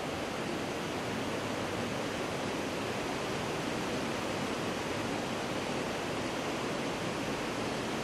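A steady, even rushing noise with no rhythm or change.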